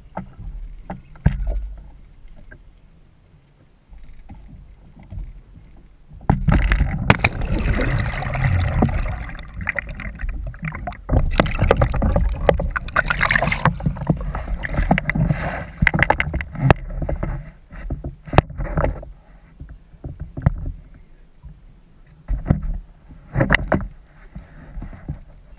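Muffled water sloshing and rumbling against a GoPro in its waterproof housing as the camera goes into the water, with many knocks and bumps on the housing. The noise starts suddenly about six seconds in and breaks into scattered knocks and short splashy bursts in the last part.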